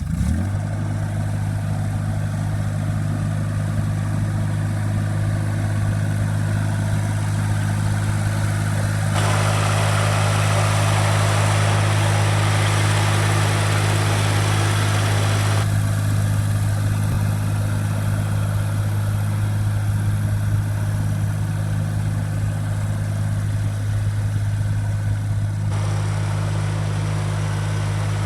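ASV RC-30 skid steer's diesel engine starting up and settling into a steady idle. Partway through, a brighter higher-pitched noise joins the engine for several seconds while the engine's pitch stays level.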